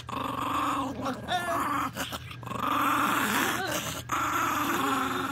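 Small Chihuahua-type dog growling with teeth bared, in long stretches that waver up and down in pitch, broken by short pauses about two and four seconds in.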